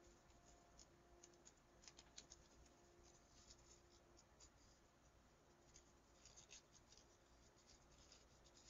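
Faint, scattered crinkles and rustles of a narrow paper strip being folded and creased by hand.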